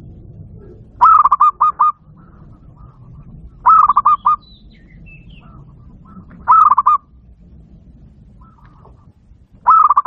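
Zebra dove (perkutut) cooing: four loud phrases about three seconds apart, each a quick run of rolling notes, with fainter bird calls between.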